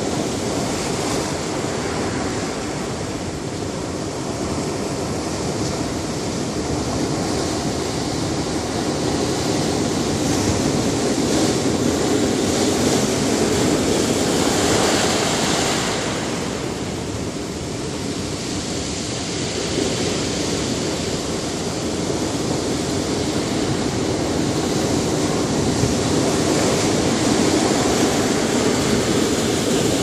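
Ocean surf breaking over a rocky shore: a continuous rush of crashing and foaming water. It swells to its loudest about halfway through, eases off for a few seconds, then builds again.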